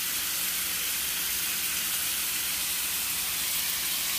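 Alaskan cod fillets pan-frying in butter, garlic and lemon juice, the liquid bubbling around them with a steady sizzle.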